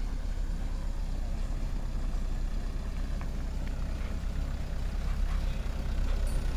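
Diesel engine of a medium dump truck running at low revs as the truck reverses slowly over a dirt track, growing slightly louder as it approaches.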